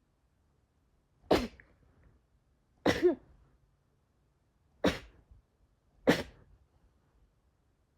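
Four short sneezes in a quick series, each a brief sudden burst.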